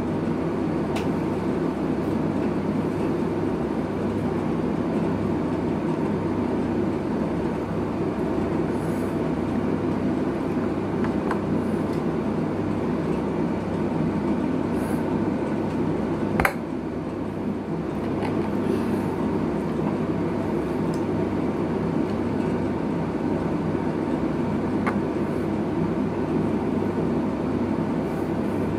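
Steady low mechanical rumble and hum. A few faint clicks sit on top, with one sharp click a little past halfway.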